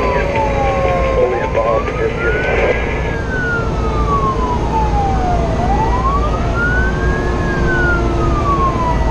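Fire engine siren wailing, rising and falling slowly in long sweeps about four seconds apart, heard from inside the truck's cab over steady engine and road rumble.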